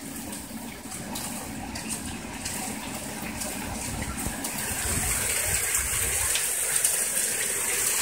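Hail and rain coming down, a steady rushing hiss with a few faint clicks of hailstones landing, growing louder about five seconds in.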